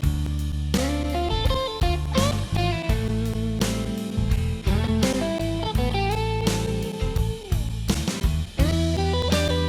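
Background music: an electric guitar lead with bent, sliding notes over bass and drums.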